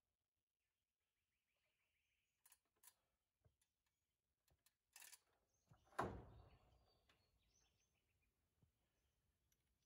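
Mostly near silence, broken by a few faint clicks and knocks from building work and one sharper knock about six seconds in that rings out briefly, with faint bird chirps.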